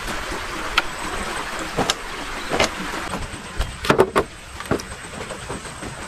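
Hollow knocks of wood and bamboo: firewood logs being set down on a rack and boots stepping on a bamboo slat platform, with a quick cluster of knocks about four seconds in. Underneath runs a steady outdoor background noise.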